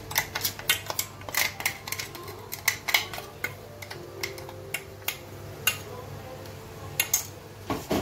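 Metal spoon clinking and scraping against a steel mixer-grinder jar as thick ground paste is knocked out into a pot. The clicks come quickly for about the first three seconds, then turn into a few scattered taps.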